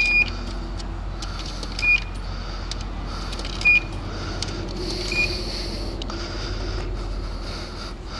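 Coin box of a self-serve car wash beeping as quarters are fed in: four short high beeps spaced about one and a half to two seconds apart, with small coin clicks, over a steady low hum.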